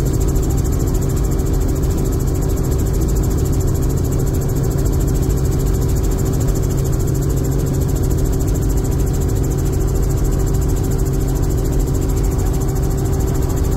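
Helicopter engine and rotor noise heard on board in flight: a loud, steady drone with a constant hum and fine rapid pulsing that doesn't change.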